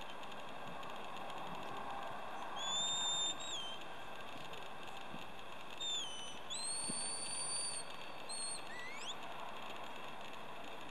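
Shepherd's whistle commands to a working Border Collie. First comes a held note that drops at its end, about two and a half seconds in. Then, between six and nine seconds in, come a short falling note, a long steady note, a short blip and a quick rising sweep.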